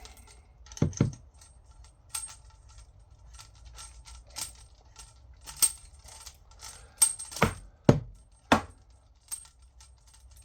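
Irregular small metallic clicks and clinks from handling a new kitchen mixer tap and its braided flexi hoses while a hose is screwed into the tap body by hand, with a few louder knocks about a second in and near the end.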